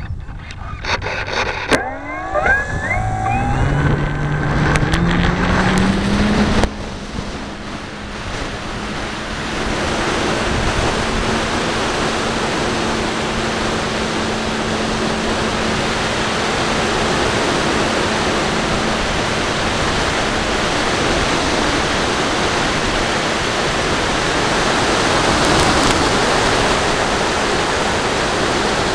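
Radio-controlled model airplane's motor and propeller, heard from a camera on board: after a few clicks, the motor spins up in a rising whine over about four seconds for takeoff. It then holds a steady tone under a loud, even rush of wind on the camera as the plane flies.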